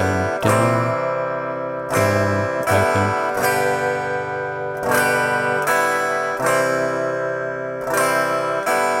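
Acoustic guitar strummed in groups of three: two chord strums, then a strum across the open strings while the fretting hand lifts to change between G and C chords. The groups repeat about every three seconds in a slow, even rhythm.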